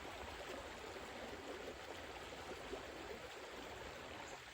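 Water of a small stream flowing, a faint, steady rushing.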